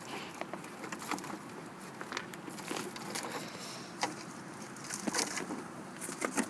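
Packaging being handled while unboxing an RC truck: crinkling plastic and cardboard with scattered sharp clicks and knocks.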